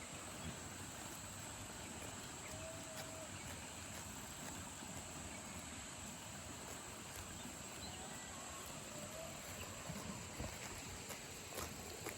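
Faint outdoor ambience of insects: a steady, high-pitched drone of crickets or cicadas. A few soft knocks come near the end.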